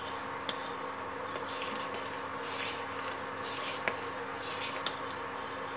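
Metal spoon stirring milk in a stainless-steel pot, with soft scraping and light clicks against the pot every second or so. A steady hum from the induction cooktop runs underneath.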